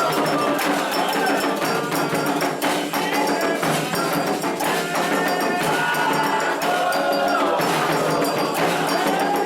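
Candomblé ritual music: atabaque drums and a metal agogô bell keep a dense, steady rhythm while voices sing a chant to the orixás.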